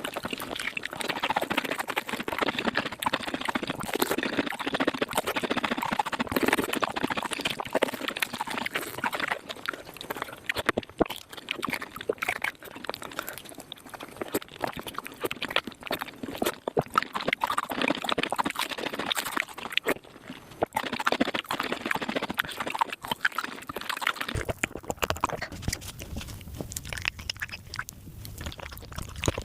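Close-miked eating sounds of spicy beef marrow sped up five times: a rapid, dense run of wet smacking, slurping and chewing clicks. About five seconds before the end the smacking thins out over a low hum.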